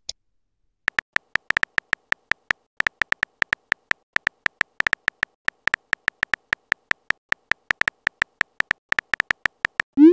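Simulated phone-keyboard typing sound effect: an irregular, quick run of short, clicky beeps, one for each letter typed. A brief high click comes at the start, and a short rising swoop begins right at the end.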